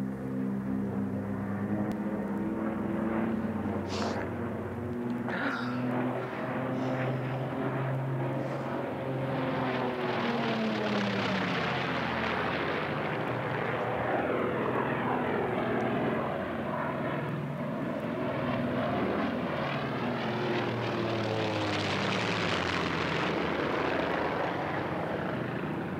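Propeller-driven aircraft flying low overhead. Its engine drone swells twice as it passes, with the pitch bending down as it goes by.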